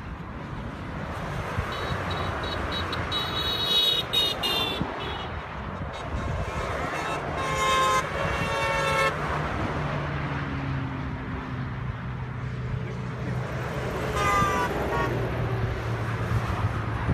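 Motorway traffic passing at speed, a steady rush of tyres and engines, with car horns honking three times: a few seconds in, around the middle and near the end. A low steady engine hum sets in about halfway through.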